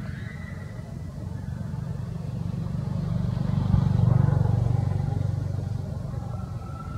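A motor vehicle passing by: its low engine rumble builds, is loudest about four seconds in, then fades away.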